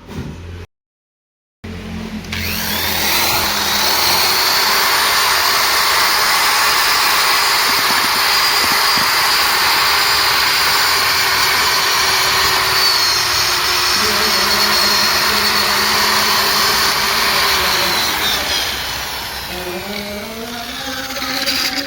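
Electric drill spinning a wire brush against engine parts to strip carbon deposits: a loud, steady whir with scratchy grinding. The motor slows about eighteen seconds in, then speeds up again near the end.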